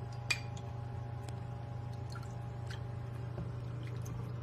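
Wet greens and their liquid being lifted out of a plastic container into a ceramic bowl: soft squishes and drips, with a few light clicks, the sharpest just after the start. A steady low hum runs underneath.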